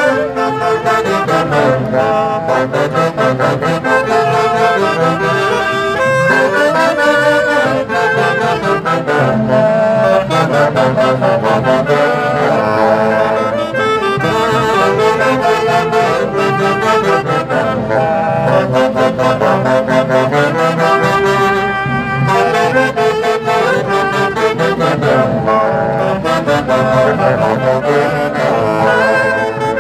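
Loud band music from a Mantaro-valley festival band, wind instruments such as saxophones playing the melody together over a steady beat.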